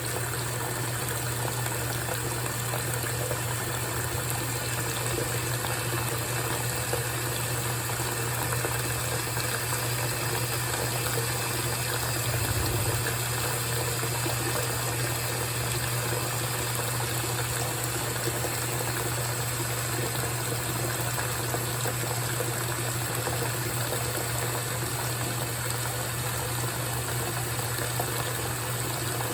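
GE top-load washing machine running a wash cycle with the lid open: water running and splashing in the tub over a steady low hum.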